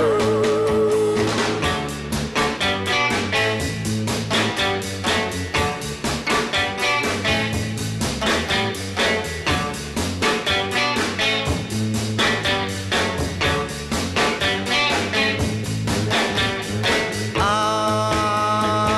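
Background music with a quick, steady beat, changing to long held notes near the end.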